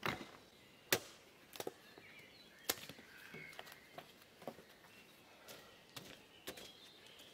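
Scrap wooden boards knocking and clacking as they are picked up, sorted and carried, a sharp knock every half second to second, with boot footsteps on bare soil.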